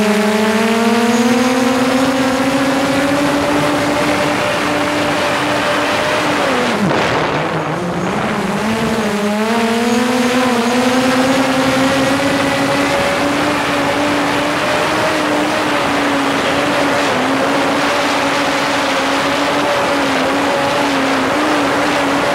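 DJI Mavic quadcopter's motors and propellers whining loudly at close range, picked up by a camera mounted on top of the drone. The pitch rises over the first couple of seconds, dips sharply about seven seconds in and climbs back by about ten seconds, then holds steady.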